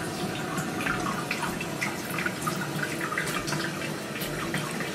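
Toilet cistern refilling through its float valve: a steady run of water with many small splashes and drips.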